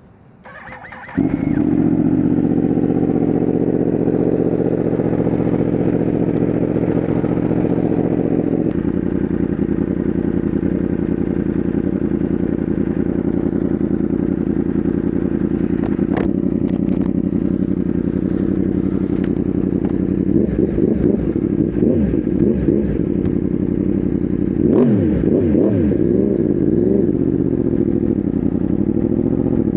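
Yamaha R1M's crossplane inline-four engine starting about a second in, then idling steadily. The idle note shifts slightly about a third of the way through, and there are a few light throttle blips, revs rising and falling, in the second half.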